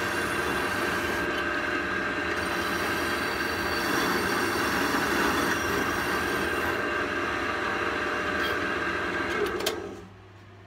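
Pillar drill running a small wire end brush against the cast-iron body of a Stanley No. 71 router plane, a steady whirring and scratching of wire on metal as old finish and grime are scoured off. The drill is switched off near the end, and the sound drops to a fading hum as the motor coasts down.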